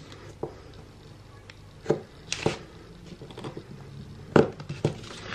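Razor knife blade scraping along the seam of a sealed plastic key fob case to cut it open, in a few short strokes; the loudest comes about two and a half seconds in.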